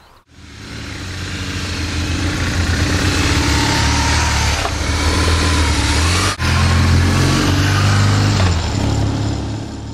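Adventure motorcycle engines revving and running as the bikes pull away and ride off, building in level over the first couple of seconds. The sound breaks off for an instant about six seconds in and carries on.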